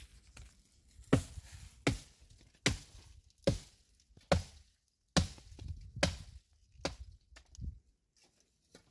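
Nine sharp chopping strikes at a steady pace, a little more than one a second.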